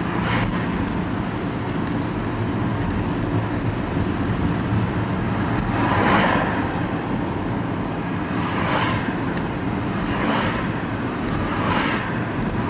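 Vehicle engine running steadily while driving, heard from inside the cab, with a low even hum and four brief rushes of noise from about six seconds in.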